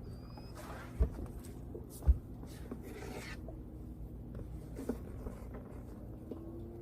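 Handling noise: rubbing and scraping with two sharp knocks about a second apart, over a steady low hum.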